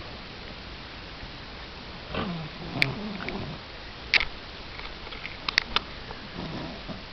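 Snoring: a long, low snore about two seconds in and a shorter one near the end, with a few sharp clicks between them.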